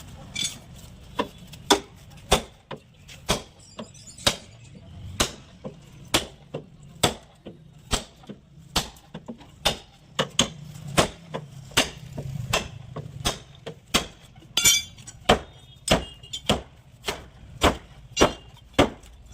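Hammer blows on a car's sheet-metal body panel, as in panel beating out crash damage. The strikes come steadily at roughly one to two a second over a low hum.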